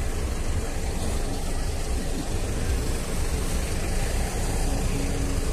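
Steady rumble and hiss of wind buffeting the microphone. A short, faint low tone rises out of it about a second before the end.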